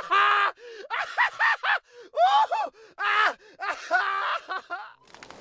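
High-pitched laughter sound effect: a single voice laughing in a run of short, quick 'ha' bursts with gasping breaths between, stopping about five seconds in.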